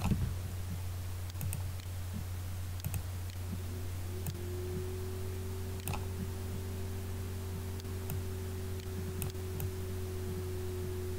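A few sharp computer-mouse clicks, scattered a second or more apart, over a steady low electrical hum; a faint steady tone joins the hum about four seconds in.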